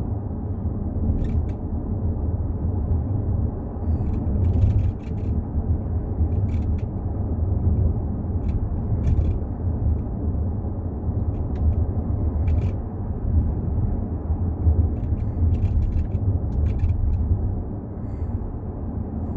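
Low road rumble inside a Volkswagen Touareg III's cabin while driving, with short irregular creaks and ticks from the panoramic sunroof. This is the squeak that appeared by 15,000 km, heard here on a relatively smooth road.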